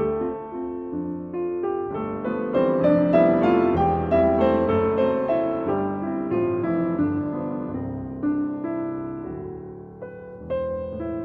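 Background piano music, a flowing melody of single notes and chords.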